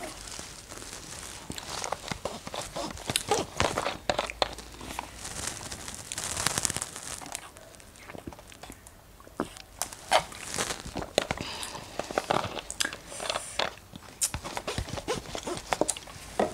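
Close-up eating and drinking sounds: a plastic drink bottle crinkling and clicking as it is handled and drunk from, among irregular wet mouth clicks and smacks from eating strawberries.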